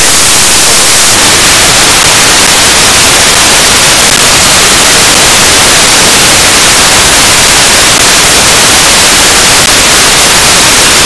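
Steady, loud hiss of narrow-FM static from an RTL-SDR receiver tuned to the International Space Station's 145.8 MHz amateur radio downlink, with no voice on the channel.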